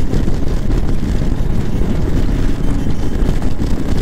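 Royal Enfield Meteor 350 single-cylinder engine running at steady cruising speed, under a heavy, steady rush of wind on the microphone.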